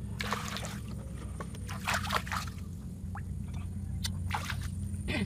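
A hand splashing and sloshing in shallow water, a few irregular splashes over a steady low hum.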